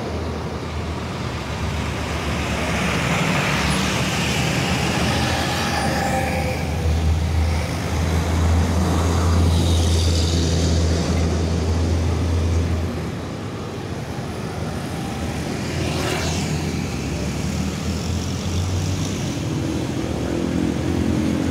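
Road traffic: motor vehicles running past with a strong, steady low engine drone that drops away about 13 seconds in.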